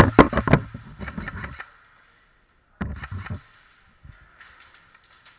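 Two bursts of sharp clicks and knocks: a quick run of them lasting about a second and a half, then a shorter burst about three seconds in, followed by faint scattered clicks.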